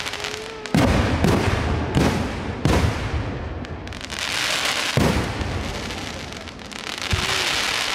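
Aerial firework shells bursting: five sharp booms, four close together in the first three seconds and one about five seconds in. Under them runs a dense crackling hiss from the glittering stars, swelling again near the end.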